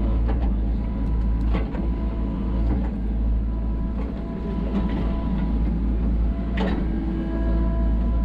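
SANY SY35U mini excavator's diesel engine running under load with a steady hydraulic whine as the boom and bucket dig soil. A few short knocks stand out, about a second in and again later.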